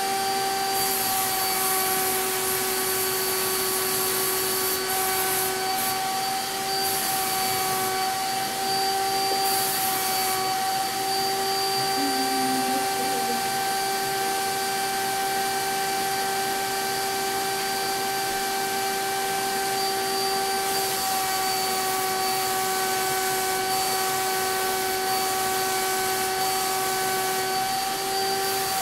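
CapSpray HVLP turbine sprayer running with a steady whine. A higher hiss cuts in and out several times as the spray gun is triggered on and off.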